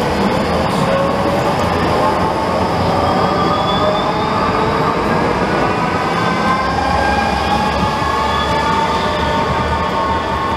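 Electric street trams running close by on street track: a steady rolling rumble of wheels on rail, with a whine in several tones that rises slowly in pitch as a tram gathers speed.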